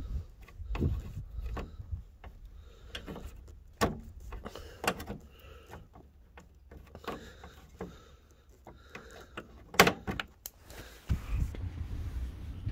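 Scattered clicks and knocks of plastic push-pin trim clips and trim panel being worked loose and handled by hand on a van's front end. The sharpest knocks come about four seconds in and just before ten seconds.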